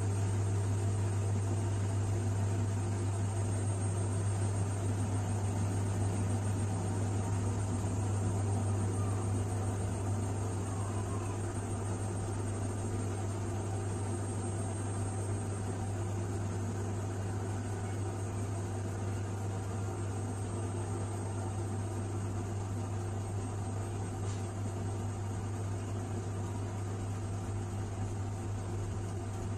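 Washing machine running with a steady low hum.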